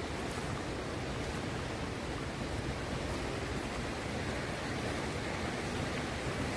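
A stream rushing steadily, a constant wash of water noise.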